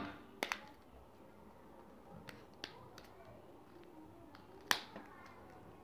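Plastic clips of a General Mobile GM 8 phone's inner cover clicking loose one after another as it is pried off by fingernail along its edge. About six short sharp clicks, the loudest near the end.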